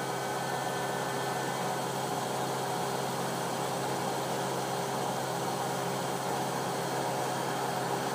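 Steady background hum with an even hiss, unchanging throughout.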